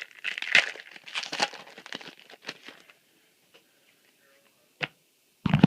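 Foil trading-card booster pack crinkling and being torn open for about three seconds, then a short click and a louder knock near the end.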